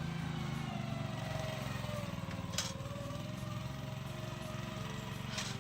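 Small gasoline engine of a Ground Logic Pathfinder spreader sprayer running steadily, with two brief ticks about two and a half seconds apart.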